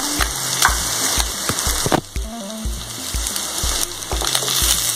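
Prawns and freshly grated coconut sizzling in hot oil in a frying pan, with scattered pops, and a spatula starting to stir through them near the end. A steady low beat of background music runs underneath, about two beats a second.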